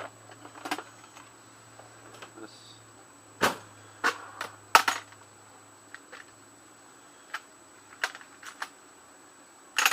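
Metal hand tools clinking and clanking while being rummaged through, in irregular sharp knocks with a few louder clanks about halfway through and again near the end.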